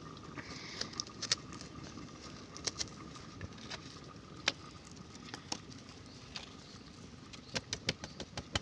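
Wood fire in a chulha crackling, with sharp pops at irregular times and a quick run of pops near the end.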